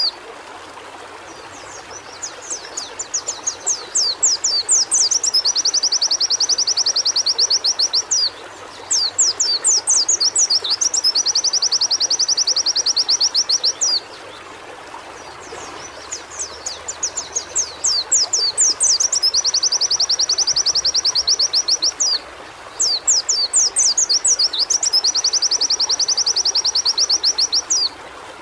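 White-eye (pleci) singing in four bouts. Each bout opens with a few quick, separate sweeping notes and runs into a long, fast, high trill. A steady rushing background noise runs underneath.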